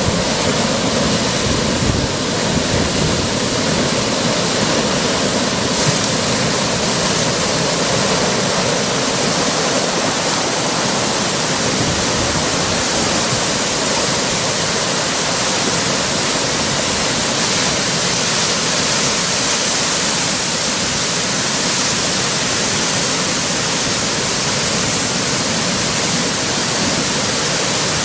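Fast floodwater rushing, a steady, loud roar of churning water.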